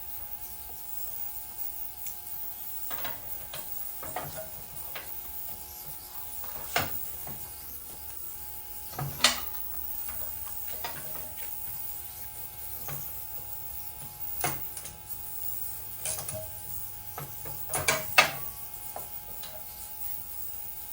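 Hand socket ratchet clicking as a tractor's housing bolts are worked loose, with scattered sharp metal knocks of tools and parts. The loudest knocks come about nine seconds in and around eighteen seconds.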